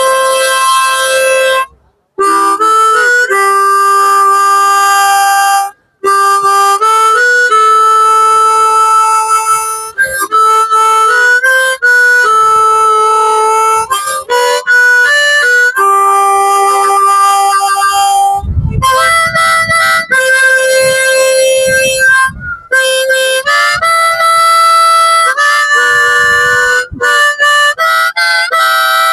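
Harmonica playing a melody over held chords, the notes changing every second or so, with two brief breaks early on. A few low bumps rumble under the playing about two-thirds of the way through.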